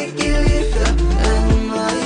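Background music with a steady beat and deep bass hits about once a second.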